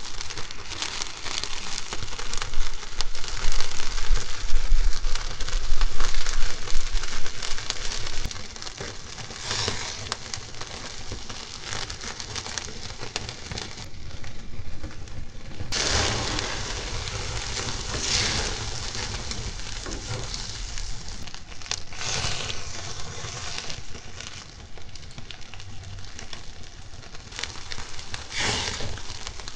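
Skewered beef and vegetable kebabs sizzling over grill flames, with steady crackling and spitting as marinade and fat drip into the fire. It is louder for the first several seconds, with brief sharper flare-ups of crackle a few times later on.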